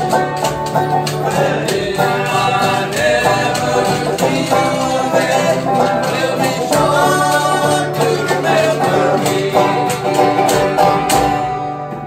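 A jug band playing and singing a lively old-time song: acoustic guitar and banjo strumming, washboard scraping out the rhythm, and the thump of a washtub bass under group vocals. The music fades out just at the end.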